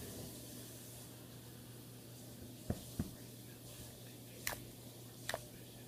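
Glue-and-detergent slime being worked with a spoon in a bowl: faint squelching, with four short, soft clicks spread through.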